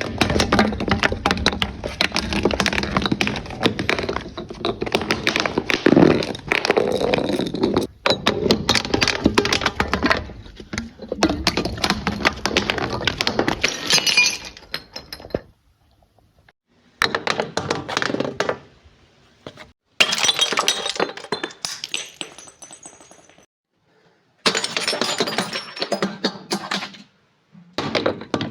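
Objects being crushed: dense, continuous crunching and cracking for about fifteen seconds, then several separate bursts of crunching with short silences between them.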